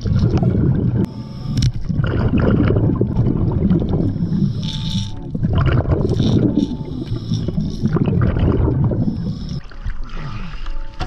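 Scuba diver's regulator breathing underwater: low, rumbling gushes of exhaust bubbles about every two seconds, with brief hissing inhalations between them. It eases off near the end as the diver surfaces by the kayak.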